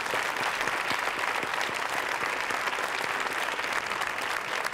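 A large seated audience applauding steadily, a dense patter of many hands clapping at once.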